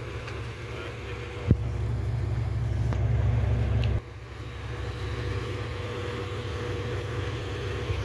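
Ambulance engines running with a steady low rumble. A brief sharp thump comes about a second and a half in, and the sound drops abruptly at the four-second mark.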